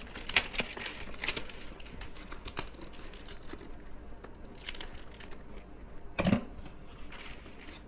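Packaging being opened by hand: plastic and cardboard crinkling and rustling, with scattered small clicks. There is a single louder knock about six seconds in.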